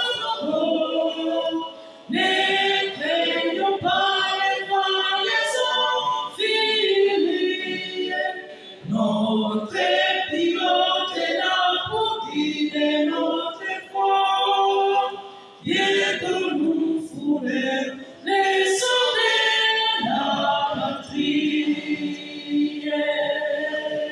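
Male vocal group singing a cappella together, phrase after phrase with short breaks between them.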